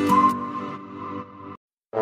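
Background music with a light melody over plucked strings fades out about three-quarters of the way through and breaks off into a brief silence, then starts again just before the end.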